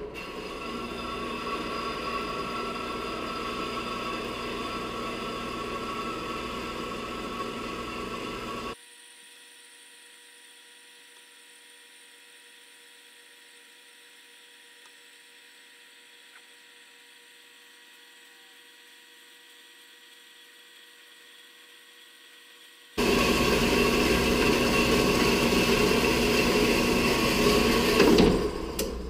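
Horizontal metal-cutting bandsaw running on its own, its blade cutting through steel angle iron with a steady sawing whine. About nine seconds in, the sound drops abruptly to a faint steady hum. About fourteen seconds later it comes back louder, as the saw head nears the bottom of the cut.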